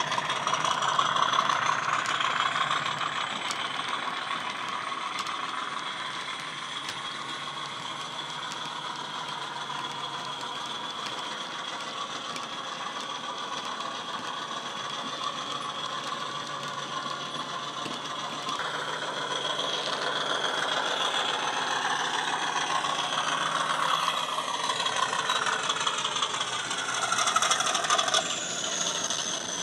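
Model Class 50 diesel locomotive's DCC sound decoder playing diesel engine sound with a turbocharger whistle through its small onboard speaker, along with the rattle of the model's wheels and wagons on the track. The sound fades as the locomotive draws away and grows louder again in the last third as it comes back.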